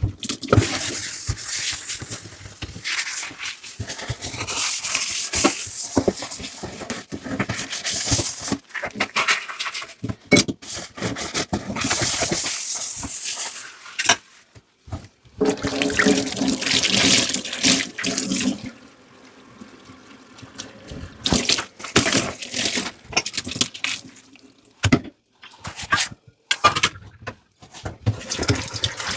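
Kitchen tap running into a sink in stretches as dishes are washed, with frequent clinks and knocks of dishes. The water shuts off for a while about two-thirds of the way in, leaving mostly the clatter.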